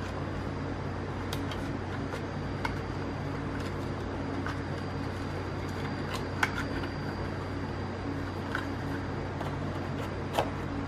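Scattered single key presses on a Logitech MX Mechanical keyboard's tactile switches: about a dozen separate clicks at uneven intervals, the sharpest about six and a half and ten and a half seconds in, over a steady hum.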